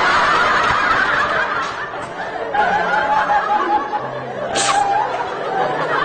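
Loud snickering laughter over music.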